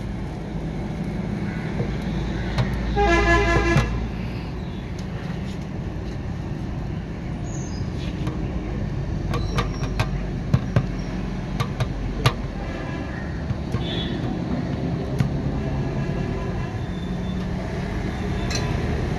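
Street traffic rumbling steadily, with a vehicle horn honking once for about a second, about three seconds in; a few sharp clicks come later.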